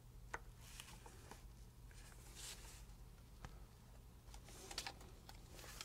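Faint scratching and small clicks of a hobby knife blade working a small styrene plastic part, over a steady low hum.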